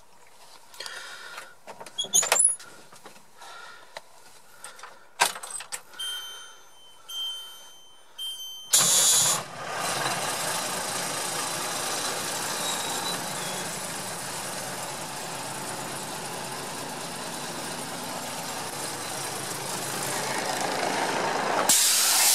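Ford 7.8-litre straight-six turbo diesel of a 1989 Ford L8000 truck on a cold start: a few clicks and a high beep that pulses three times, then the engine catches about nine seconds in and settles into a steady idle. A brief rush of noise comes near the end.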